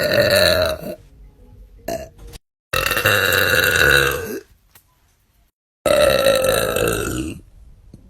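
Women burping: three long, loud, drawn-out belches in a row. The first tails off about a second in, the second runs through the middle, and the third comes near the end. Each drops in pitch as it ends and is cut off abruptly.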